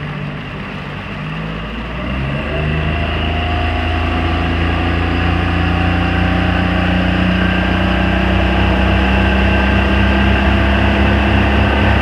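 40 hp Tohatsu four-stroke outboard motor running, its pitch climbing over the first few seconds as it speeds up, then holding steady while growing gradually louder.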